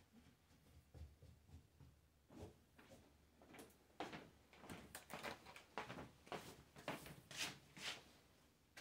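Quiet, light knocks and clatter of objects being handled, a quick run of them starting a few seconds in.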